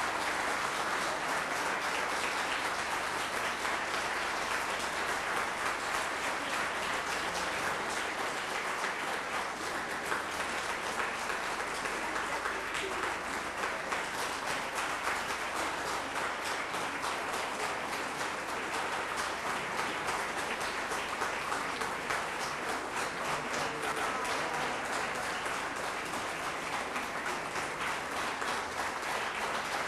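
Audience applauding steadily, many hands clapping throughout.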